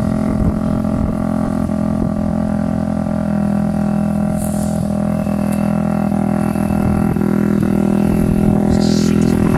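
Yamaha WR426F dirt bike's four-stroke single-cylinder engine running at a steady idle while the bike lies on its side after flipping over.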